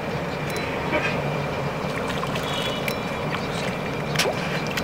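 Steady low background hum with a few faint splashes from a hooked tilapia thrashing at the water's surface.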